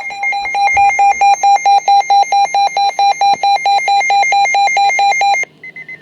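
Weather radio receiver's alert alarm beeping rapidly and loudly, about five beeps a second, signalling a weather warning alert. It cuts off suddenly about five and a half seconds in, and faint higher beeps in groups of four follow.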